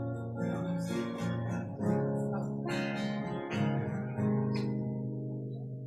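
Acoustic guitar played as a song's introduction: chords plucked and strummed about once a second and left to ring, the last one fading out near the end.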